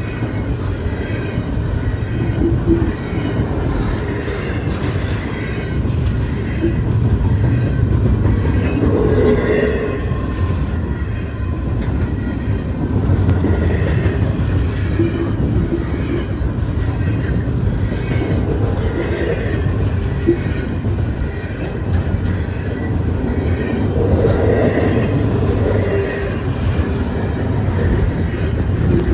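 Intermodal freight cars rolling past: a steady rumble of steel wheels on rail, with wheel clatter and short squeaks here and there.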